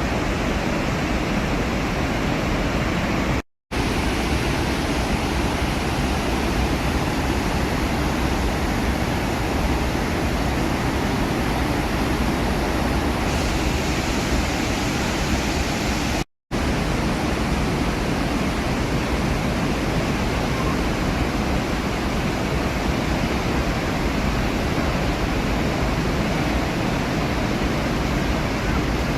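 Roar of the Iguazu Falls waterfalls: a steady, loud rush of falling water, broken twice by a split-second of silence.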